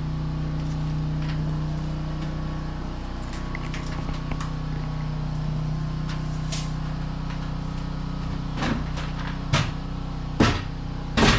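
A steady low mechanical hum, with a few sharp knocks in the last three seconds, the loudest near the end, as of wood or tools being knocked about during wall framing.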